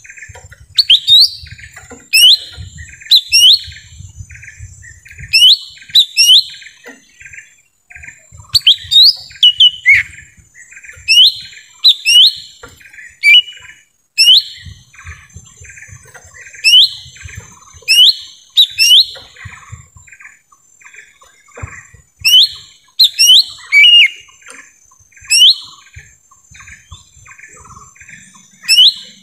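Cucak ijo mini (lesser green leafbird) song of the kind played as a lure call: loud, sharp, rising whistled notes in groups of two or three, repeated every second or two over a steady run of short lower chirps.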